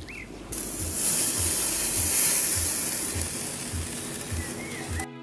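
Dry-aged beef steak sizzling on the very hot grate of a Kamado Sumo JR15 ceramic grill, searing. The sizzle starts about half a second in and cuts off suddenly near the end.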